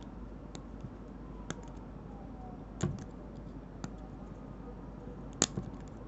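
Small, separate clicks and taps of a tiny keychain folding multi-tool being handled as fingernails pry a blade out of its stainless, plastic-scaled frame. There are about six clicks, irregularly spaced, and the sharpest comes near the end.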